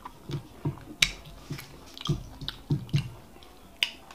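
Close-miked wet mouth smacking while eating fufu and bitter leaf soup by hand: about nine sharp, irregular smacks and clicks.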